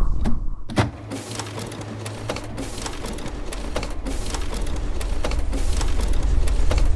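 A sharp click just under a second in, then dense crackling and ticking that slowly grows louder, with a low hum for about a second and a half after the click.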